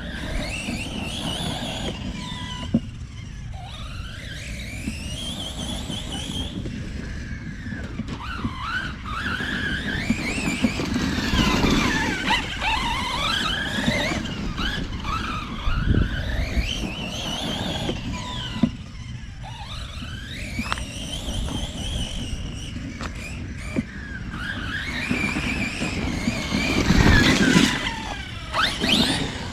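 Redcat Kaiju EXT RC truck on Arrma Copperhead 2 tires being driven hard: its brushless motor whines, rising and falling in pitch again and again with the throttle, over a constant rumble of tires on the ground. There are a couple of sudden thumps, the loudest near the end.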